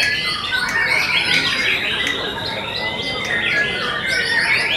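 White-rumped shama singing a continuous, fast-changing song of whistles and chattering notes.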